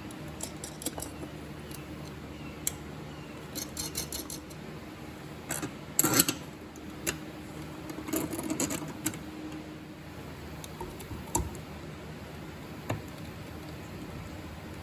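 Scattered light clicks and small metallic clatters of hand tools and parts being handled, loudest about six seconds in and again around eight to nine seconds, over a steady low hum.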